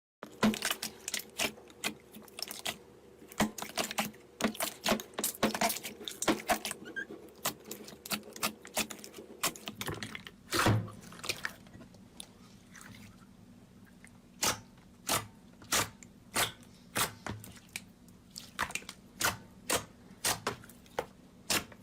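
Slime being pressed and squished by hand in ASMR style, giving a run of sharp wet pops and crackles, one or two a second, with a longer crunch about halfway through.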